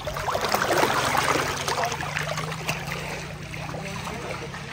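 Pool water splashing and trickling, busiest in the first couple of seconds, over a low steady hum.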